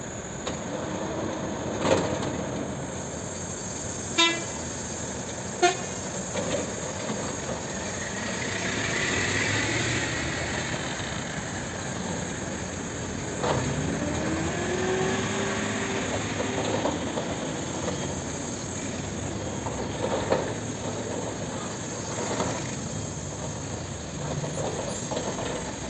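Caterpillar 324D hydraulic excavator's diesel engine working under load, its pitch rising as it revs about halfway through, alongside a dump truck's diesel engine. Sharp metallic knocks come about two, four and six seconds in.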